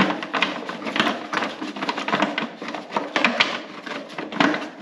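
Plastic drive-belt cover of a Husqvarna HU800AWD mower being pushed and snapped back into place: a run of irregular plastic knocks, clicks and rattles.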